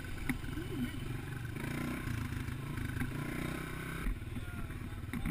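Dirt bike engine running steadily at trail speed, heard from on board the bike, with the rattle of the bike over a rough trail and a few sharp knocks.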